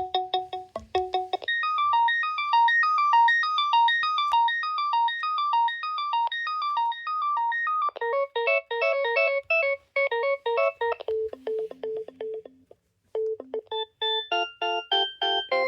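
BT7600 cordless phone playing its built-in electronic ringtones one after another. A two-tone ring ends about a second in, followed by a fast, high rippling melody, then a lower tune and a repeated low two-note figure. After a brief pause near the end, another melody starts.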